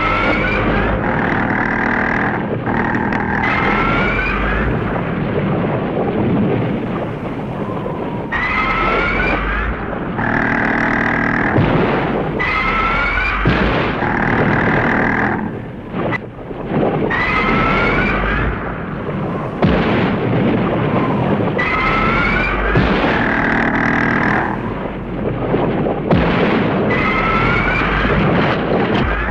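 Giant-monster cries from a tokusatsu kaiju fight, Sadora and Detton, repeating every few seconds: a rising shriek and a held screech, over a low rumble with a few heavy thuds.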